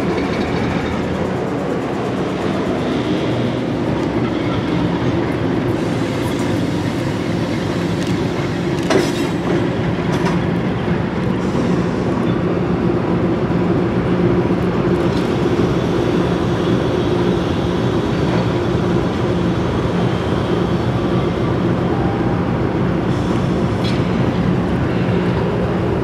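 GE B23-7 diesel-electric locomotives, with 12-cylinder GE 7FDL engines, running steadily as the train moves along the track. There is a single sharp click about nine seconds in.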